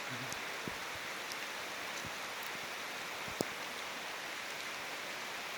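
Heavy rain of large drops falling steadily, a dense even hiss with scattered sharp drop hits, one louder about three and a half seconds in.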